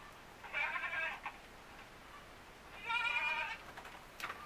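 Etawa goat kid bleating twice, two short high bleats about two seconds apart, with a couple of sharp knocks near the end.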